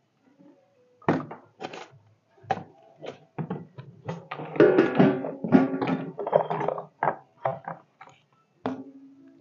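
Music with plucked-string notes, starting about a second in.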